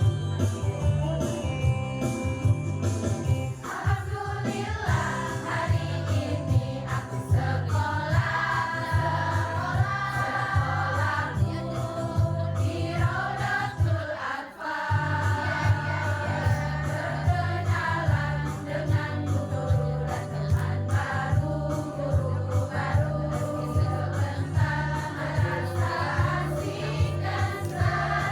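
Choir singing a song over an instrumental accompaniment with a steady, prominent bass line. The voices come in strongly a few seconds in, and the music drops out briefly about halfway through.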